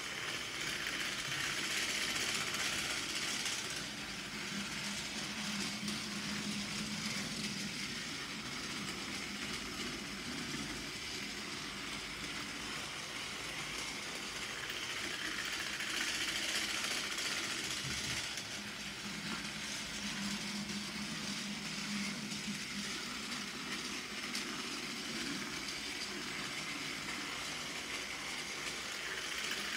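Battery-powered Plarail TS-23 Ashima toy train's motor whirring and its wheels rattling along plastic track as it runs laps of an oval. The sound swells about every fourteen seconds as the train passes close by, then drops back as it runs to the far end.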